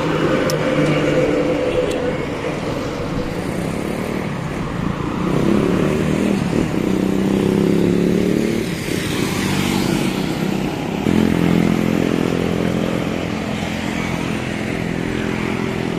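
Highway traffic going past close by: the engines of trucks, cars and motorcycles passing one after another, with a cement mixer truck passing first. The engine sound swells with each pass-by and never drops away.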